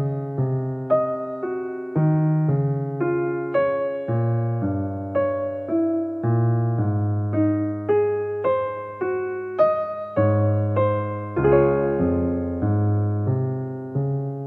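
Slow, relaxing piano music: a melody of single notes, each struck and then fading, about one or two a second, over held low bass notes.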